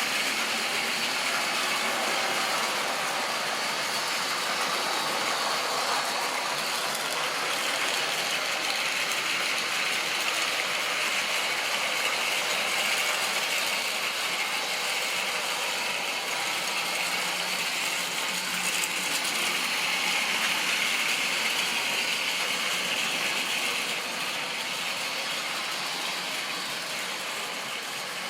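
Model railway train running along the track: a steady whirring rattle of the locomotive's motor and gears and the wheels on the rails, easing off a little near the end.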